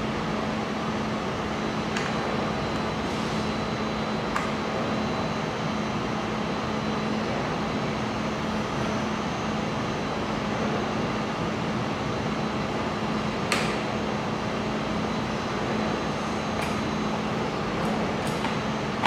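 Laser welding machine's cooling fans and electrics running steadily: an even whoosh of fan noise with a constant low hum. A few faint clicks and knocks come as a monitor and its cables are handled.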